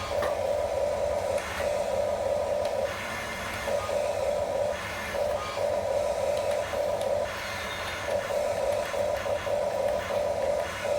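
Small electric gear motors of a remote-control toy construction vehicle whirring in short runs, starting and stopping every second or so.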